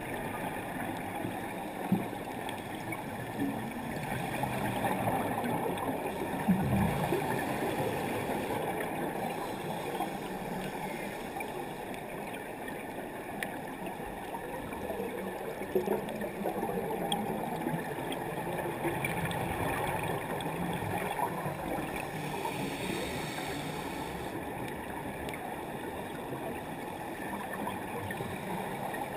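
Underwater scuba ambience: a steady bubbling and gurgling of divers' exhaled air from their regulators, with a few faint clicks, swelling and easing in loudness.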